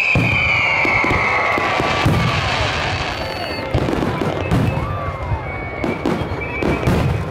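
Fireworks display: aerial shells and fountains firing and bursting with repeated bangs and crackling. A high whistle falls in pitch and fades out in the first second or so.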